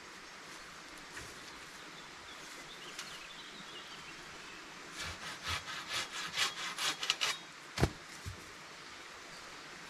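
Quick back-and-forth strokes of a small hand saw cutting through wood, about four or five a second, starting about halfway through and lasting about two seconds, followed by a sharp knock of wood, the loudest sound, and a softer second knock.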